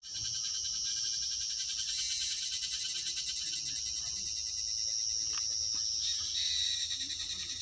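Steady, high-pitched insect chorus trilling, with a second, slightly lower trill joining in about six seconds in.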